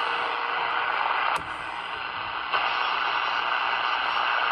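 Steady hiss of band noise from a Cobra 148 GTL DX CB radio's speaker as it receives on an open channel with no station coming through. About a second and a half in there is a sharp click and the hiss drops, coming back up about a second later.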